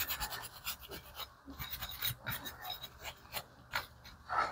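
A gun-cleaning brush scrubbing the slide of a Taurus G3C pistol: quick back-and-forth scratchy strokes in the first second, then slower, scattered strokes and scrapes.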